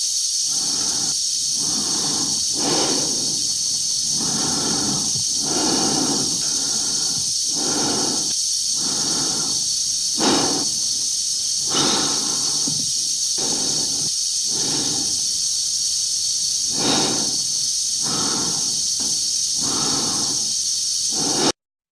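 An astronaut breathing slowly and heavily inside a sealed spacesuit helmet, regular breaths in and out over a steady hiss of the suit's air supply. The sound cuts off suddenly just before the end.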